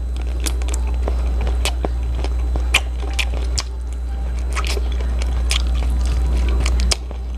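Close-miked eating of saucy chicken feet adobo by hand: wet lip smacks, sucking and biting on the feet, heard as irregular sharp clicks and smacks, over a steady low hum.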